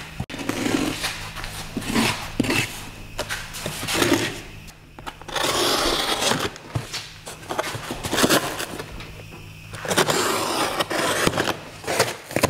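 Long cardboard shipping box being opened by hand: cardboard and packing tape scraping, rustling and tearing as the flaps are cut and pulled back, with scattered knocks, and two longer tearing stretches about halfway through and near the end.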